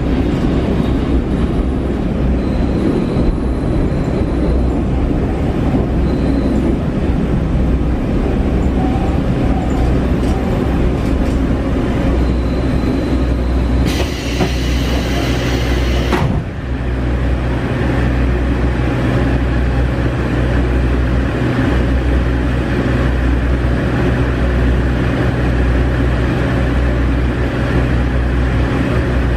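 Cabin sound of a JR Shikoku KiHa 40 diesel railcar: its diesel engine running with the rumble of the carriage on the rails. A high hiss lasts about two seconds a little past halfway and cuts off suddenly.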